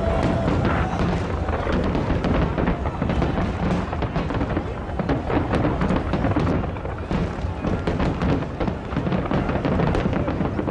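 Fireworks going off in quick succession: many sharp bangs and crackles, one after another, over a continuous low rumble.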